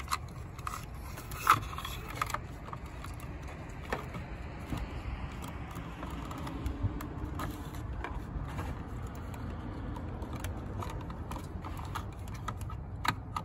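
Hands handling and fitting plastic satellite-dish LNB parts and a coaxial cable: scattered small clicks and scrapes, one sharper click about a second and a half in, over a steady low rumble.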